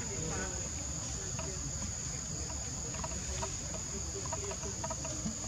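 Forest insects droning steadily at one high pitch, over a low steady rumble of background noise.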